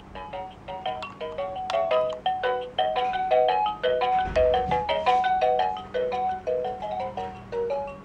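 Electronic toy music from the sound unit of a Fisher-Price Rainforest Melodies and Lights baby gym: a quick, beepy tune of short notes, several a second. A low thud comes about halfway through.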